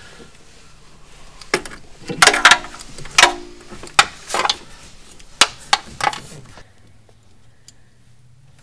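Irregular metallic clicks, taps and scrapes as an M6 bolt with a star washer and a ground-wire ring terminal is fitted and screwed into a threaded hole in the car's engine bay. The clicks come in a loose run and stop about six and a half seconds in.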